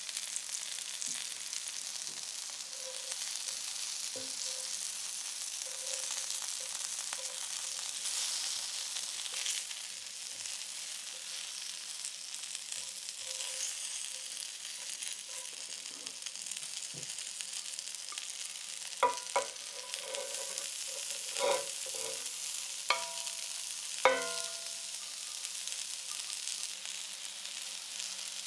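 Flour-coated chicken pieces sizzling steadily as they fry in rapeseed oil in a frying pan. Near the end a utensil knocks sharply against the pan about five times, each knock ringing briefly.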